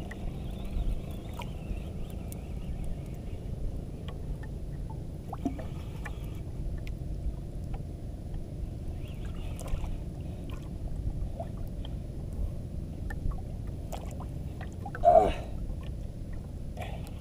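Steady low rumble of wind and water slapping against a small outrigger boat, with scattered light ticks from the jigging reel and line as a fish is pumped and reeled up from deep water. A brief voice sounds about fifteen seconds in.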